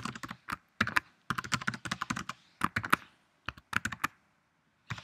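Typing on a computer keyboard: quick runs of keystrokes with short pauses between them, and a longer pause near the end.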